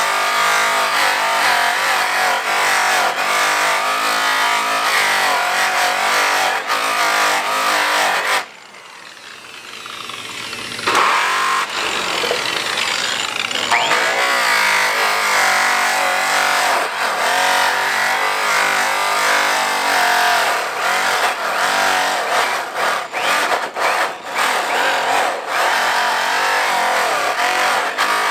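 Angle grinder running a buffing wheel against an aluminium truck wheel, cutting the wheel centre with polishing compound. The steady motor-and-buff sound drops off sharply about eight and a half seconds in and is back at full level about two and a half seconds later.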